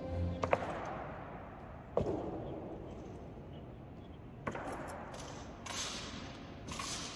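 Honor guard drill: a handful of sharp, echoing knocks one to two and a half seconds apart, from the guards' boots stamping and rifles being handled.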